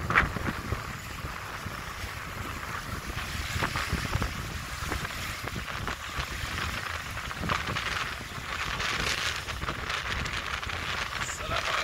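Small waves washing and breaking onto a sandy shore, with wind buffeting the microphone.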